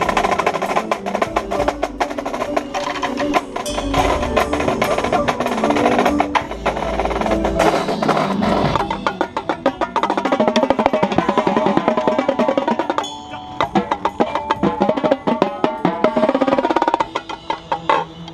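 Marching tenor drums played close up in an indoor drumline show: fast, dense strokes and rolls, with the rest of the percussion ensemble playing along. There is a short break about two-thirds of the way through, and the playing thins out near the end.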